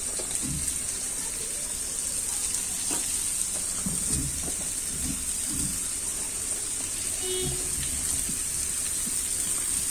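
Cauliflower florets and finely chopped onions frying in hot oil in a pan: a steady sizzle, with a few soft knocks from a spatula stirring them.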